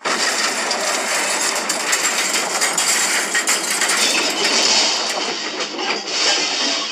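Cartoon crash sound effect: a long, dense metallic clatter of many rattles and clanks, starting abruptly.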